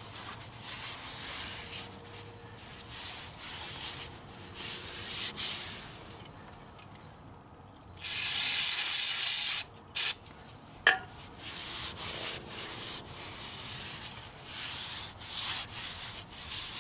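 A rag scrubbing the axle's seal mating surface, rubbing on metal in irregular strokes. About eight seconds in, an aerosol can of brake cleaner sprays in a loud hiss lasting about a second and a half, then a short second burst.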